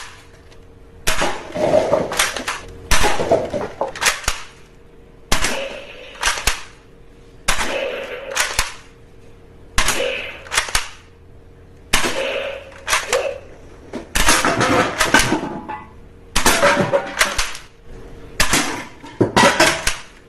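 Toy guns firing: about nine short bursts of clicking, crackling gunfire sounds, each lasting a second or so, with short pauses between them.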